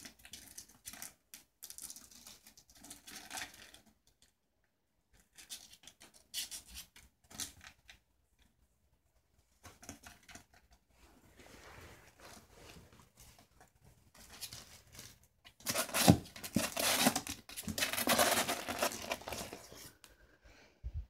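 A ferret rummaging in a cardboard box of Christmas gift bags and tissue paper, rustling and crinkling the paper in irregular bursts with short pauses. It is loudest and most continuous near the end.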